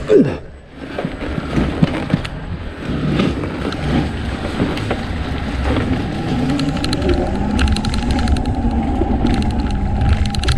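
Zero FXE electric motorcycle ridden on a dirt trail: the motor's whine rises and falls with the throttle over a steady rush of wind and tyre noise. The whine drops away sharply right at the start and holds steadier in the second half.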